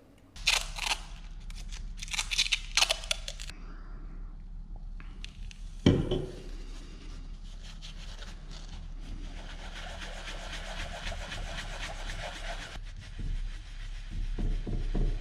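A small brushed-metal exhaust badge being scrubbed against a sponge, a steady scratchy rubbing that starts with a knock about six seconds in and stops near the end. Before it come several seconds of light clattering as small items are handled.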